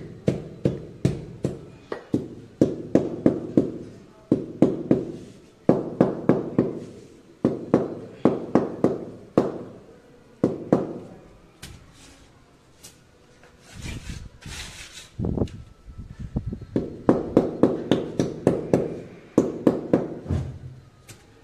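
A hammer tapping a ceramic floor tile to bed it into the mortar, in quick runs of about four or five sharp taps a second with short pauses between the runs. A brief scraping hiss comes about two-thirds of the way through.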